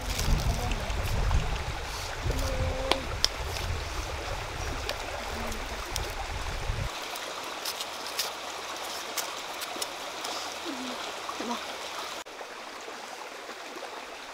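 Steady rush of running water from a stream, with scattered small clicks and scrapes from jicama tubers being handled and peeled with a knife. A low rumble in the first half stops abruptly.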